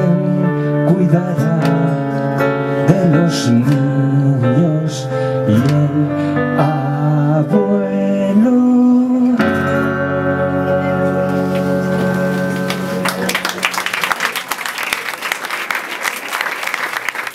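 Live band ending a song: a man singing with guitar and keyboard, then a final chord held for a few seconds and fading. Audience applause breaks out about three-quarters of the way through.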